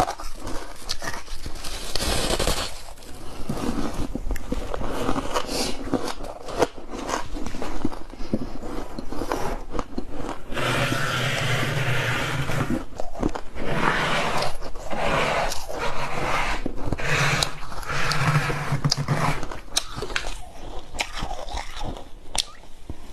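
Someone biting and chewing hard frozen freezer ice, in a dense, continuous run of crisp crunches.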